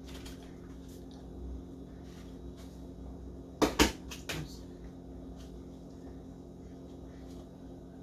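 Two sharp knocks a little under four seconds in, then a softer one just after, like kitchen things being handled, over a steady low hum.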